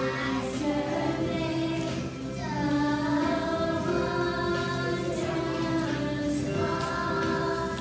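A group of young children singing a song together, with musical accompaniment.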